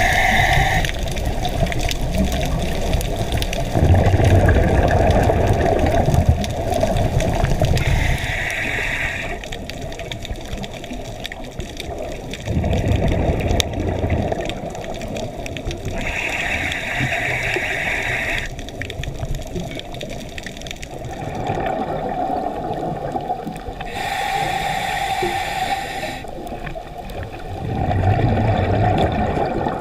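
Scuba diver breathing underwater through a regulator: a short hissing inhale about every eight seconds, each followed by a longer burst of bubbling exhaled air.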